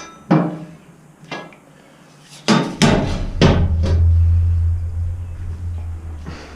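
About five sharp hammer knocks on metal, the hardest about halfway through. A low hum follows and fades over the next few seconds.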